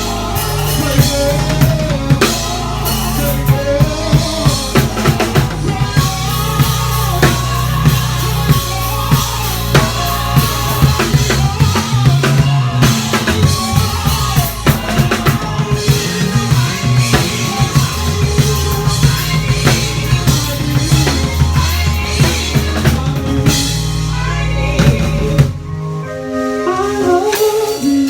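Gospel band playing an instrumental passage: a bass holds low notes under a drum kit with bass drum, snare and rimshots, while keyboard plays a melodic line above. About 25 seconds in, the bass and drums drop out and the keys carry on alone.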